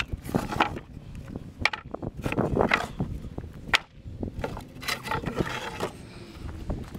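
Lumber boards knocking and clattering against each other as they are handled and shifted on a pile, a string of separate wooden clacks.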